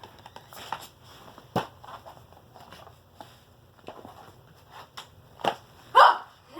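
Scattered knocks, taps and rustles of objects being handled, irregularly spaced, with a louder short burst about six seconds in.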